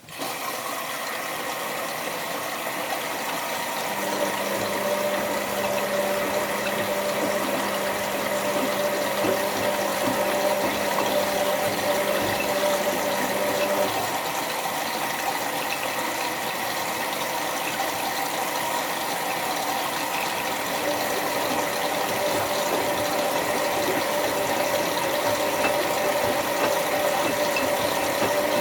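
Bauknecht WA 7778 W washing machine with water suddenly starting to rush through it, a steady hiss of flowing water. A steady hum joins it from about four seconds in for roughly ten seconds.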